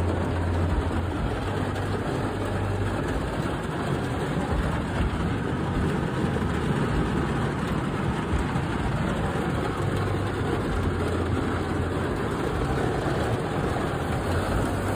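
Heavy rain pouring down on the truck and the flooded parking lot, a steady dense hiss, heard from inside the cab through the open window. A low steady hum runs underneath.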